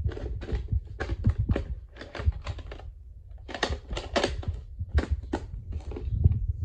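Irregular clicks and clacks of hard plastic, several a second with a short lull partway through, as VHS tape cases are handled close to the microphone, over a low handling rumble.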